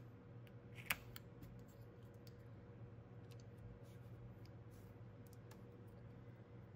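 Quiet handling of nail-stamping tools: a plastic scraper card scraped over a metal stamping plate, with one sharp click about a second in, then faint ticks as a clear jelly stamper is pressed onto the plate and lifted.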